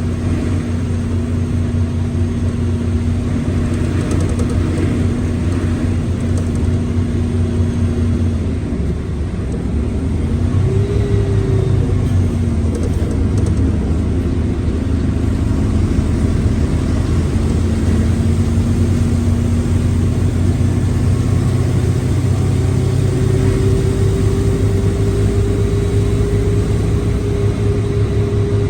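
Mercedes-Benz OF1721L BlueTec 5 bus's diesel engine running with a steady tone from a growling gearbox. About nine seconds in the sound dips briefly, then picks up again with a rising whine, and a higher steady tone comes in near the end.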